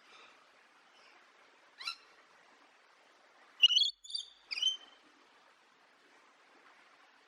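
Parrot calling: one short call about two seconds in, then a quick run of three sharp, high calls around the middle, the first the loudest.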